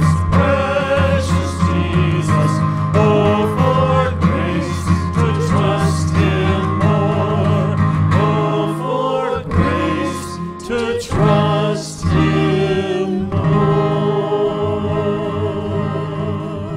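Church worship band performing a hymn: several voices singing together over acoustic guitar and piano, ending with a long held note with vibrato near the end that slowly fades.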